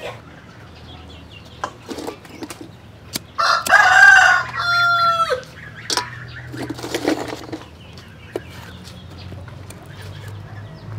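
A rooster crows once, about three and a half seconds in: a long, loud call that drops in pitch at the end. Chickens cluck now and then around it.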